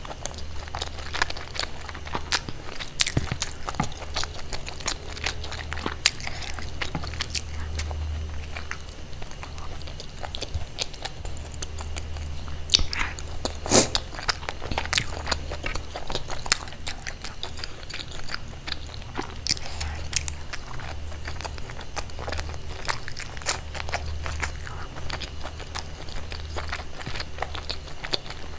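Close-miked eating: a person biting, chewing and crunching food, with many irregular sharp crunches, the loudest about 14 seconds in.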